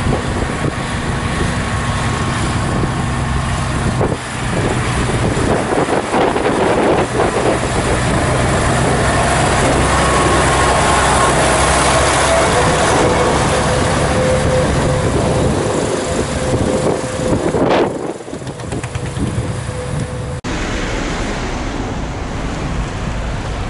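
Magirus-Deutz tipper truck's air-cooled Deutz diesel engine running as the truck drives past along a sandy track, the engine note swelling as it passes. About twenty seconds in the sound cuts abruptly to a steadier vehicle running noise.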